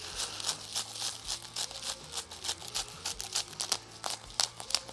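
Spice dispenser rattling and crackling in quick, irregular dry clicks, several a second, as seasoning goes onto a raw steak.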